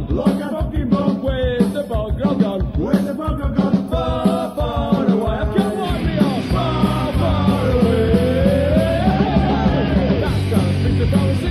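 Punk rock song with singing over a rock band. About six seconds in the sound grows fuller and denser, with a gliding lead line over it, and the singing comes back near the end.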